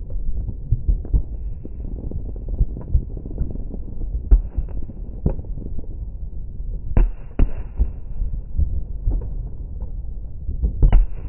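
Fireworks going off: a steady run of irregular bangs and pops, mostly dull low thumps, with sharper, louder bangs about seven seconds in and again near the end.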